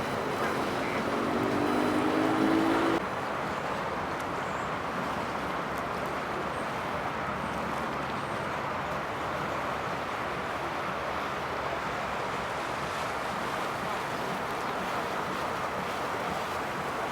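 Steady rumble of boat engines with a wash of water and wind noise. In the first three seconds an engine tone rises slightly in pitch, then cuts off abruptly.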